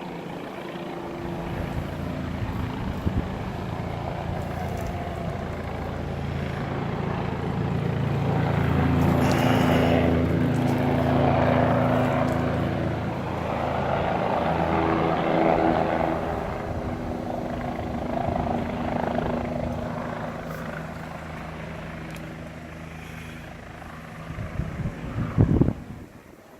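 Low-flying helicopter passing overhead, its rotor and engine drone building to a peak about a third of the way in and then fading away. A few brief bumps come near the end.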